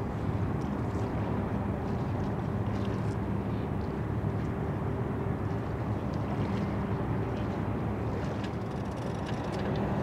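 Ship's engines running under way: a steady low rumble with a constant hum and a hiss of noise over it.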